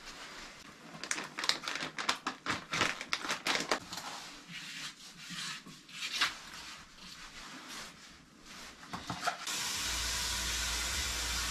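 Plastic bag crinkling and small knocks and scrapes of hand work at the base of a toilet, irregular and stop-start. About ten seconds in, a steady hiss with a low hum starts and holds.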